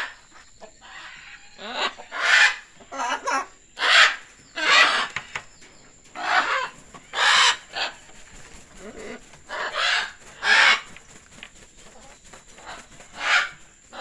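Young scarlet macaws squawking: about a dozen short, harsh calls at irregular intervals, some in quick pairs.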